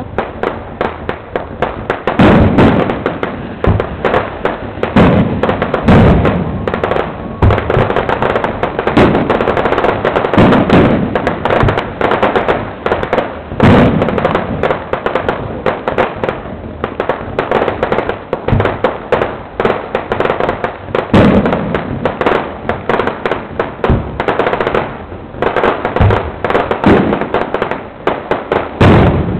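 Fireworks display: a dense, continuous crackle of small bangs, with heavier booming shell bursts every second or two.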